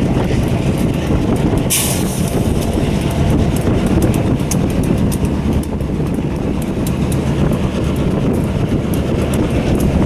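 EMD SD38-series six-axle diesel locomotives, a B&LE SD38AC and an EJE SD38-2 with non-turbocharged 16-cylinder 645 engines, rolling past with a steady low engine rumble and many light clicks of wheels over the rails. A short hiss comes about two seconds in.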